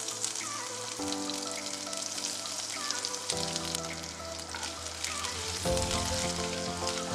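Grated ginger, cumin seeds, dried red chillies and bay leaves sizzling in hot oil in a frying pan, with fine crackles, over background music.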